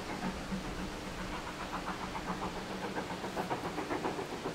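GWR Hall class 4-6-0 steam locomotive 6960 Raveningham Hall working hard in the distance as it approaches, its exhaust beating in a quick, even rhythm.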